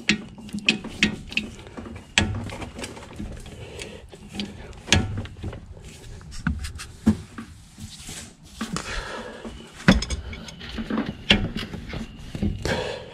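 Click-type torque wrench and a 17 mm wrench working a front brake caliper bolt: scattered sharp metallic clicks and clinks, the loudest just under ten seconds in.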